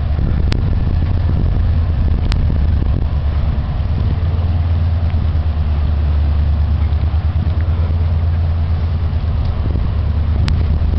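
Steady low rumble of a moving vehicle carrying the camera, with a couple of faint ticks about half a second and two seconds in.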